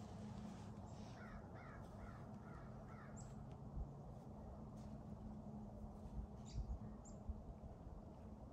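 Crow cawing in the distance, about five harsh caws in quick succession starting about a second in. A few faint high chirps follow later.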